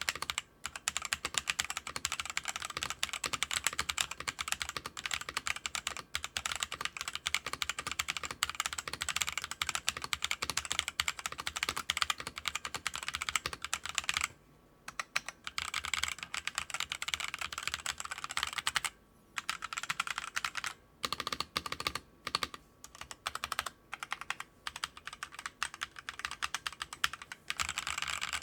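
Fast typing on a Gamen Titan 7 mechanical keyboard with linear red switches: a dense, continuous clatter of keystrokes, broken by a few brief pauses in the second half.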